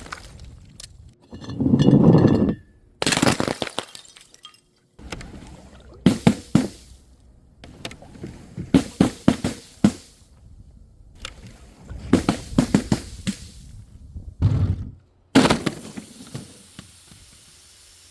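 Glass bottles and jars shattering one after another in several separate breaks, each a sudden crash followed by clinking shards, with some splashing of liquid.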